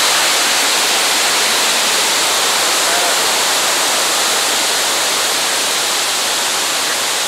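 Steady rush of water pouring over a creek waterfall, a loud, even roar of whitewater.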